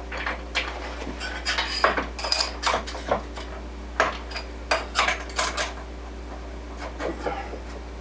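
Metal parts clinking and knocking together in a quick, irregular series of sharp clinks, some ringing briefly, as metal shims are handled and fitted at a wood lathe's tailstock. A steady low hum runs underneath.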